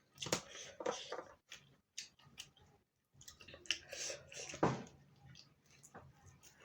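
Close-miked eating sounds: chewing and wet mouth clicks, with a few short noisy bursts in between.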